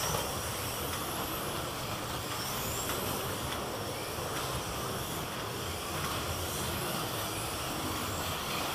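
Slot cars lapping a multi-lane routed track: a steady whir of small electric motors and the cars running in their slots, with faint high whines that rise as cars accelerate.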